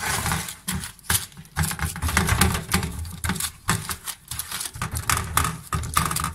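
Gloved hands pressing and spreading dough in a parchment-lined baking tray, making irregular taps, clicks and rustles.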